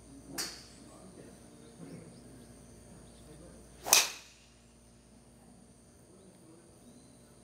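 A golf driver striking a ball off a tee: one loud, sharp crack about four seconds in. A fainter, shorter crack comes near the start.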